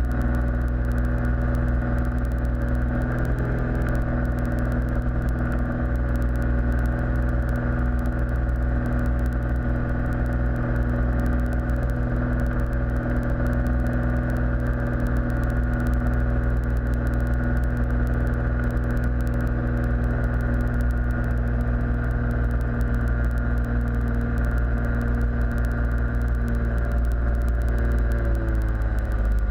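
Cozy Mk4's rear-mounted piston engine and pusher propeller droning steadily, heard from inside the cockpit. The pitch drops slightly near the end.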